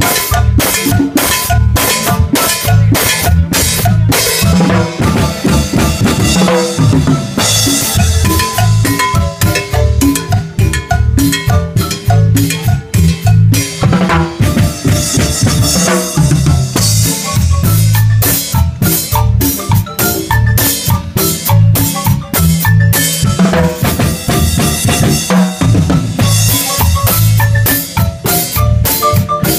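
Marimba orchestra playing a cumbia live: several players on one large wooden marimba over a drum kit with cymbals, with a low bass line and a steady beat.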